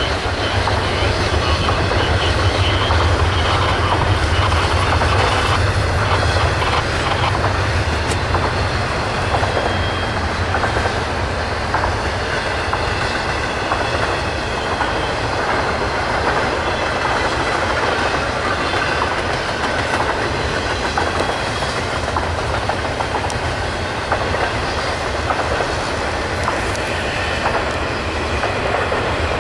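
Double-stack intermodal freight cars of a Norfolk Southern train rolling past, a steady rumble of steel wheels running over the rails.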